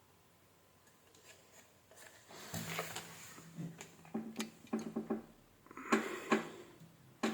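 Clicks and knocks of objects being handled on a workbench. Several light taps follow about two seconds of quiet, with the loudest knocks near the end.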